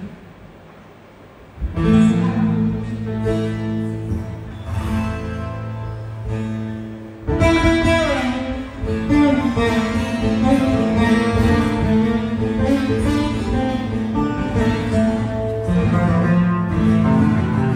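Saz and guitar playing an instrumental passage. It starts after a short pause about two seconds in and turns busier, with many quick plucked notes, about seven seconds in.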